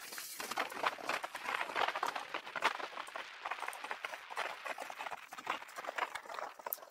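Bicycle rattling and clicking as it rolls along the road: a dense, irregular run of small clicks and knocks.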